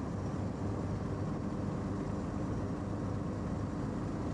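A vehicle engine running steadily, with a low hum.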